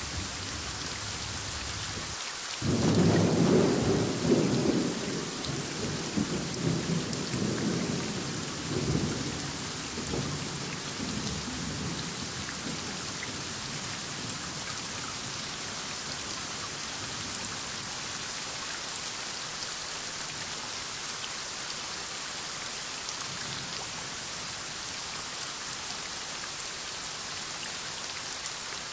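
Steady heavy rain, with a loud clap of thunder that begins suddenly a couple of seconds in and rolls on in waves for about ten seconds before dying away.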